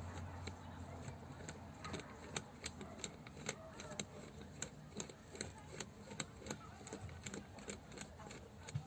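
Sharp, irregular metallic clicks, about two or three a second, from tools and parts of a car power steering pump being handled during disassembly.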